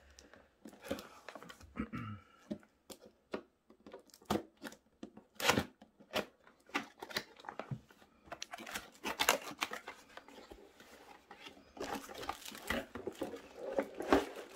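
Cardboard retail box being handled and opened by hand: irregular knocks, taps and scrapes of cardboard, with longer stretches of packaging rustling near the end.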